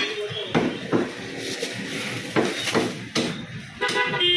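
Butcher's cleaver chopping goat meat and bone on a chopping block: about seven heavy strikes at an uneven pace.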